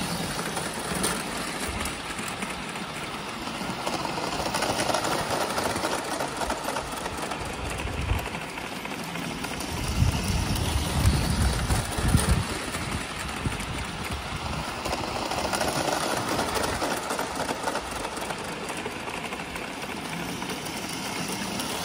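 Electric toy trains running on metal track: a steady mechanical running noise that swells as a train comes near. It is loudest about ten to twelve seconds in, with a low rumble and a few sharp clicks.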